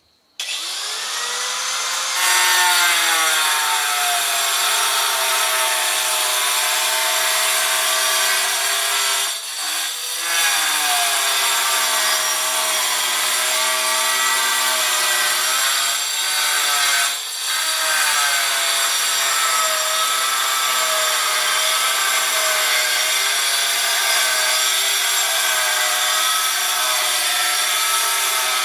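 Handheld angle grinder: its motor whines as it spins up, then runs steadily while cutting. The pitch sags a few times as the disc is loaded and recovers each time.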